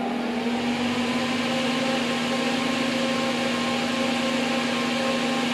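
Two all-metal solder fume extractor fans speeding up to high speed. Their whine rises over the first second, then they run steadily with a rush of air and a steady hum.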